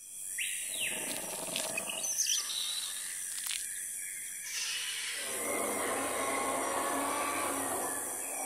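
Jungle ambience for an intro: bird calls and chirps, one gliding call near the start, over a noisy wash that grows fuller about five seconds in.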